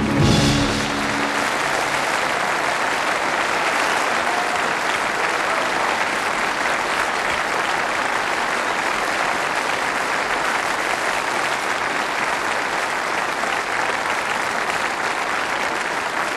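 A final loud chord from piano and orchestra that dies away within the first second or two, followed by steady, sustained applause from a large concert audience.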